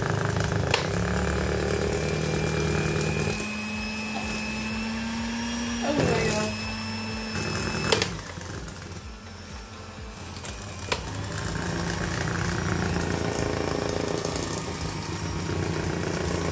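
A small electric motor runs with a steady hum. It changes pitch about three seconds in, stops around eight seconds in, and starts again about three seconds later.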